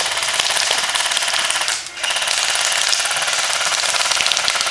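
Airsoft guns firing on full auto, a fast even run of shots with one short break a little under two seconds in.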